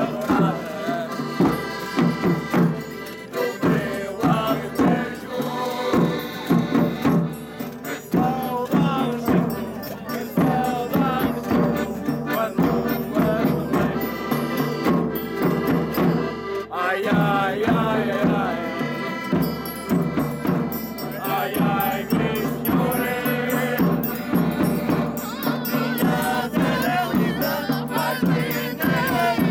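Portuguese folk music for a desgarrada: a Scandalli piano accordion playing with steady bass drum beats, and a voice singing over it.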